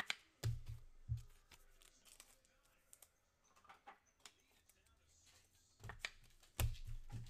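Irregular clicks and knocks from hands working at a desk and computer keyboard, with dull thumps about half a second in, about a second in, and a cluster of louder ones near the end.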